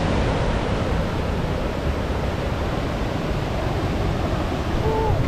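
Steady rushing of a fast mountain creek running white over rocks, heard close by.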